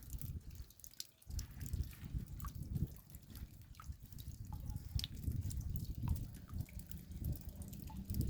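Raindrops dripping: many single drops ticking at irregular intervals over a steady low rumble.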